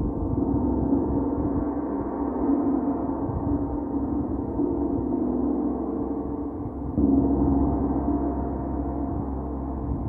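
Large hanging gong played with a mallet, ringing in a continuous wash of overlapping tones; a louder stroke lands about seven seconds in.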